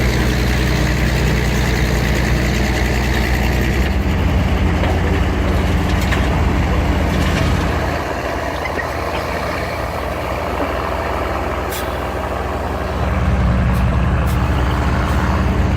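Heavy engine of vintage construction machinery running under working load. Its note changes about 4 s in, eases off about halfway through and picks back up near the end, with a few light clanks.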